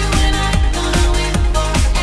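Electronic dance music with a steady, fast kick-drum beat under a sustained synth line.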